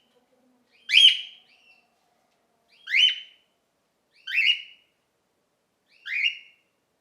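Cockatiel flock calls: four short calls, each sweeping upward, repeated about every one and a half to two seconds.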